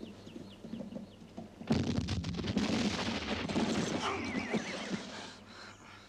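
A sudden explosion from cannon fire about two seconds in, followed by several seconds of rumbling and crackling debris, with a horse neighing in a wavering call about four seconds in.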